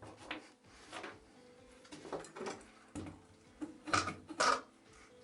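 Scattered clicks and knocks of a 13 mm socket wrench working the nut off a vacuum cleaner motor's impeller shaft, with two louder knocks about four seconds in.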